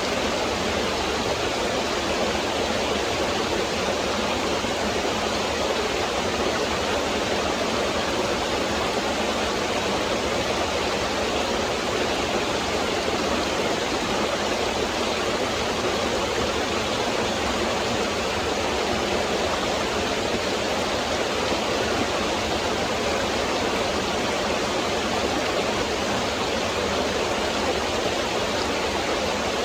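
Woodland stream: water running and splashing over rocks in a steady, unbroken rush.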